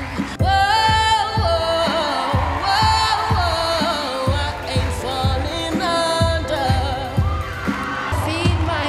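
Pop song performed live: a lead vocal sung over a backing track with a steady beat.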